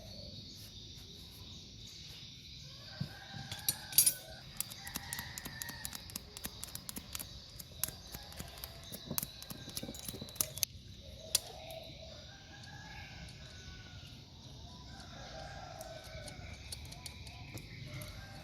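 A rooster crowing several times, with a quick run of sharp clicks and taps in the middle, loudest a few seconds in.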